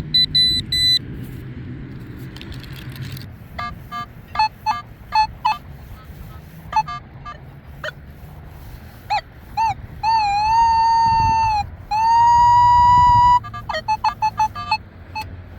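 Nokta Legend metal detector sounding target tones as its coil sweeps the ground: a few quick high beeps at first, then a run of short mid-pitched chirps, and two longer tones about ten and twelve seconds in, the first wavering in pitch and the second steady. Wind rumbles on the microphone underneath.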